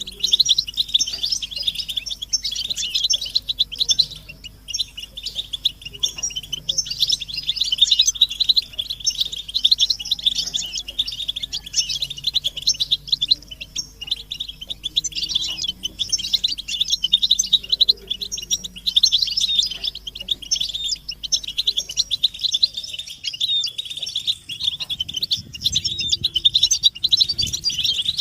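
Several European goldfinches twittering together in a dense, unbroken stream of quick high chirps and trills: excited mating chatter.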